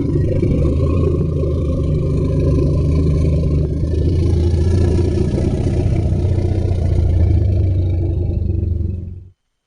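Designed creature sound effect for the sauropod Amphicoelias fragillimus: one long, deep rumbling call lasting about nine seconds, then cutting off abruptly.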